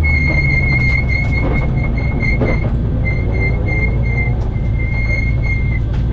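Peugeot 106 rally car's engine running at low revs as the car rolls slowly, heard from inside the stripped cabin, with a steady high-pitched whine over the engine hum that briefly breaks off about three seconds in.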